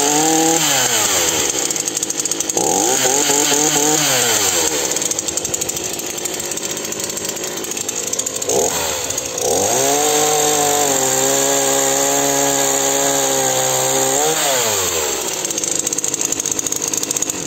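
Titan TTL759CHN 40cc two-stroke petrol chainsaw revved up twice and let back down, then run into a log, its engine sounding rougher under load. It then holds a steady high rev for several seconds before dropping back toward idle near the end.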